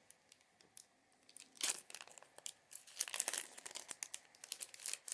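Foil Pokémon TCG booster pack wrapper being torn open and crinkled: a short rip about a second and a half in, then a run of sharp crinkling crackles.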